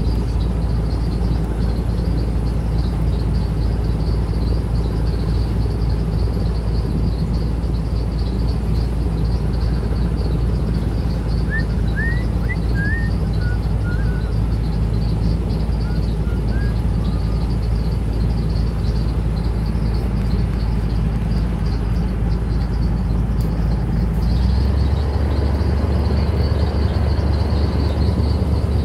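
Airboat's engine and propeller running steadily as a loud low drone; about 24 seconds in the low part of the drone grows louder. A bird chirps a few times midway.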